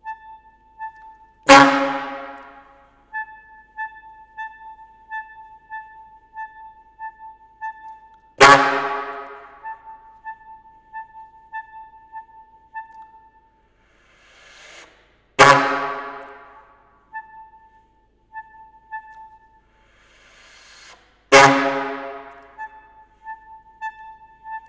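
Saxophone playing contemporary music. Four loud, sharply attacked low notes each die away, about six to seven seconds apart. Between them a soft high note repeats in short pulses, with breathy air sounds in the pauses.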